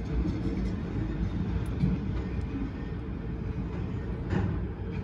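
Freight train of autorack cars rolling past: a steady low rumble of wheels on rail, with a sharp clack about two seconds in and another near the end.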